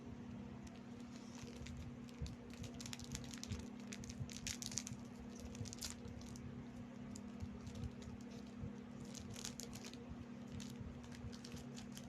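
Rebisco crackers being eaten and handled close to the microphone: bursts of crisp crackling and crunching, with a steady low hum underneath.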